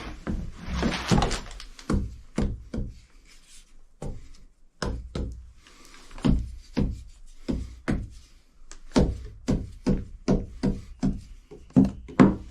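Irregular knocks on the wooden keel timbers of a wooden boat, about two to three a second, each with a short ring: tapping the keel to show it is still solid.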